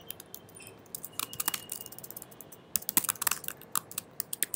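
Keystrokes on a computer keyboard: irregular clicking typing, with a quicker run of keys in the second half.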